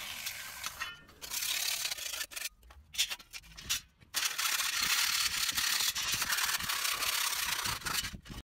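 A flat file rasping along the cut edge of steel cable tray in repeated strokes, deburring the cut; it comes in short broken scrapes at first, runs steadily from about halfway, and cuts off abruptly near the end.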